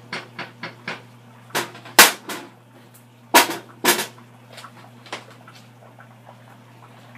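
A spoon stirring and scraping a ground-beef rice mixture in a nonstick skillet, with light clicks, then four sharp knocks of the spoon against the pan between about one and a half and four seconds in. A steady low hum runs underneath.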